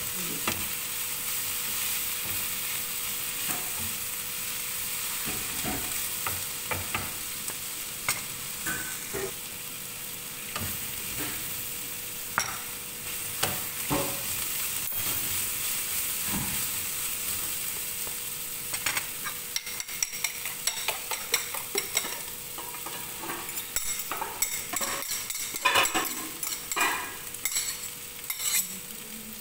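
Sliced bitter gourd stir-frying in a frying pan: a steady sizzle, with a wooden spatula scraping and tapping against the pan. The taps come more often in the last ten seconds.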